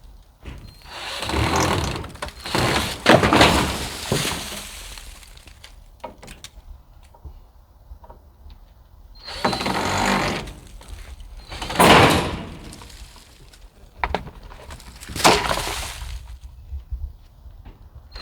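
Old metal guttering being taken down: short runs of a cordless drill or driver backing out rusty screws, with loud clanks and rattles of the sheet-metal gutter, three of them sharp single knocks.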